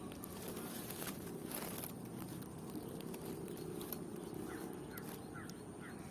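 Outdoor park ambience: a low steady rumble with a few brief rustles or clicks, a thin steady high tone, and a short run of small bird chirps in the second half.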